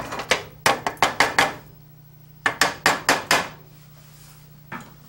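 A serving spoon rapping against cookware while brown rice is dished up: two quick runs of about half a dozen sharp knocks, a second or so apart, and one lone knock near the end.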